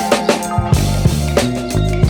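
Background music with drums and bass, a steady beat.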